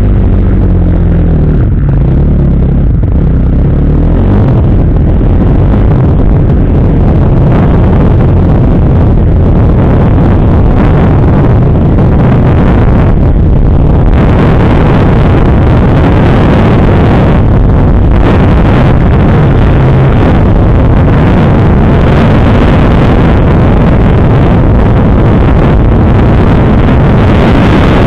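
Kawasaki KX250F's four-stroke single-cylinder motocross engine, loud and close: idling with small blips of throttle at first, then running under load with the revs rising and falling as the bike rides off along the dirt track.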